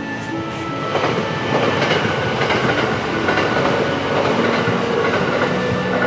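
Train passing on the railway line, wheels clattering over the rails, getting louder about a second in and running on steadily.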